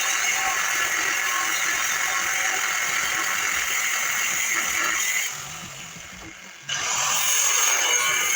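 Power saw with a DeWalt blade cutting through heavy steel angle iron, a steady, high-pitched cutting noise. About five seconds in it dies away, then starts again abruptly a second and a half later.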